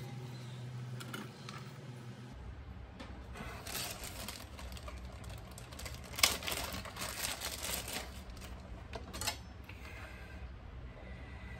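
Kitchen prep work: a run of quick clicks and taps from utensils on a work surface, loudest about six seconds in, over a low steady hum that comes in about two seconds in.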